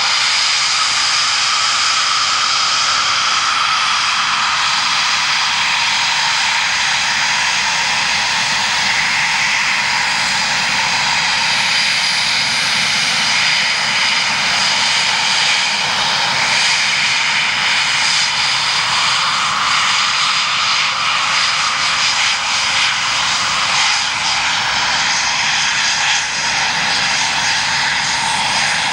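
Eurofighter Typhoon's twin EJ200 turbofan jet engines running at low power as the fighters taxi, a loud steady whine made of several high tones over a rushing noise.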